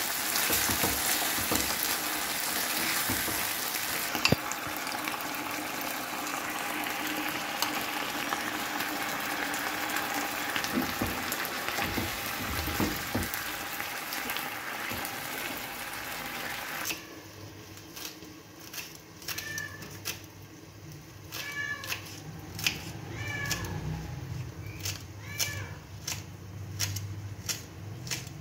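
Chicken pieces sizzling and frying in a nonstick pan while a silicone spatula stirs and scrapes them. About 17 seconds in this changes to a knife chopping spring onions on a wooden board, a run of sharp, regular chops, with a cat meowing several times in short, falling cries.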